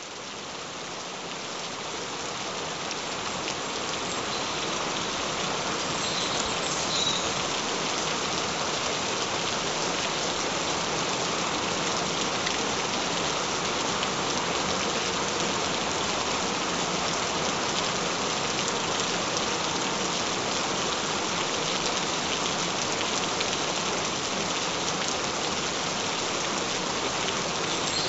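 Gentle, steady rain falling, fading in over the first few seconds and then holding an even hiss.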